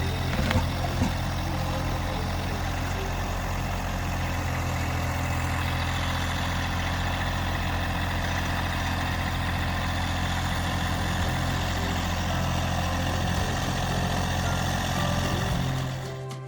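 A vehicle engine idling steadily, with two short knocks about half a second and a second in. The engine sound cuts off near the end.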